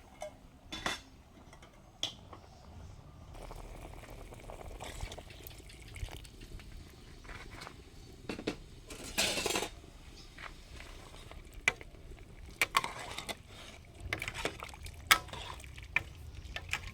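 Cooking at a pot: a metal utensil clinking and knocking against it at irregular moments, with liquid stirred and sloshing. There is a short rush of noise about nine seconds in.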